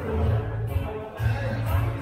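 Music with a steady, heavy bass beat, about two beats a second.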